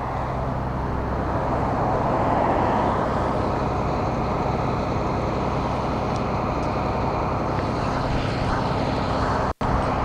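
Caterpillar C7 diesel engine of a Blue Bird All American bus idling steadily, a low even hum under a broad rushing noise, broken by a brief dropout near the end.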